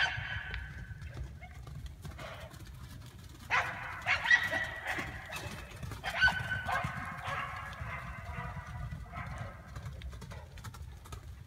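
A dog barking and yelping excitedly: a short call at the start, then two longer, loud bouts of calls about three and a half and six seconds in.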